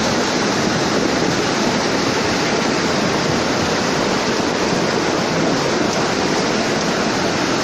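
Floodwater rushing hard and steadily in a torrent during a tropical storm.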